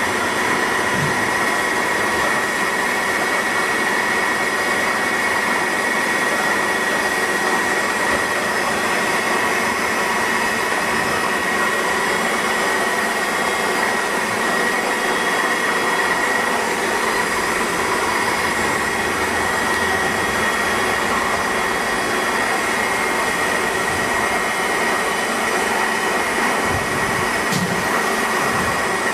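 Daewoo ACE HM 800 horizontal machining center running under power: a steady mechanical whir with a constant high-pitched whine.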